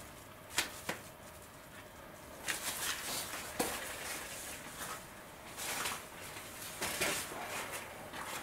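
Scattered handling noises: a few sharp clicks and knocks, with short rustles and scrapes in between.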